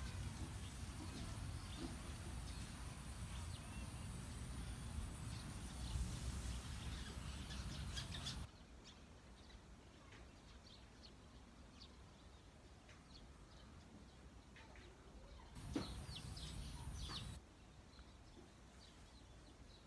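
Faint outdoor background with scattered short high chirps and ticks. A low rumbling noise starts and stops abruptly: it runs for about the first eight seconds and comes back briefly for a second or two near the end.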